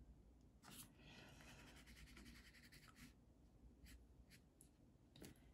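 Faint scratching of a watercolour brush working paint into paper, with a few light taps.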